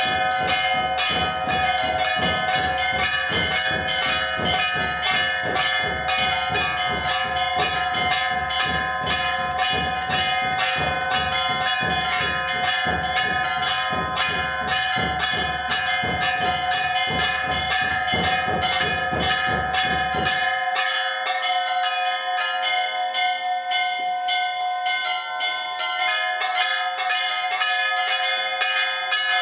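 Hindu temple bells rung rapidly and continuously, several bells of different pitches ringing together. A low thudding beat underneath stops abruptly about two-thirds of the way through, leaving only the bells.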